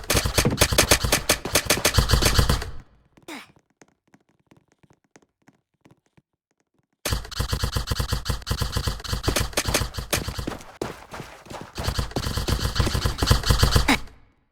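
Airsoft gun firing on full auto: a fast, even stream of shots for about three seconds, a pause with one lone click, then a second long stream of shots for about seven seconds.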